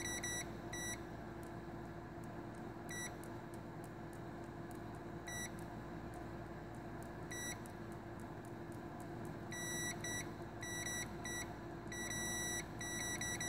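Uni-T UT210E clamp meter's continuity buzzer beeping as its test probe tips are touched together: short beeps of one steady pitch, a few scattered ones at first, then quick clusters over the last few seconds. It is a latching continuity tester, not as fast as it could be but fairly responsive.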